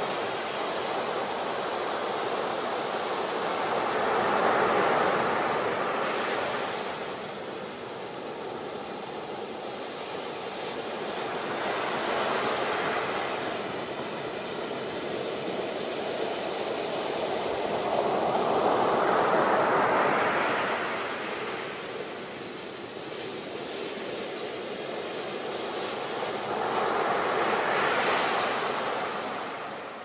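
Ocean surf breaking on a beach: four waves build and crash, roughly one every seven to eight seconds, with a steady rushing hiss between them.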